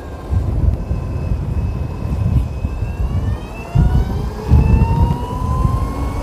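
Daedong GS100 electric scooter accelerating: a whine that climbs steadily in pitch from about halfway through. Heavy wind buffeting on the microphone runs underneath.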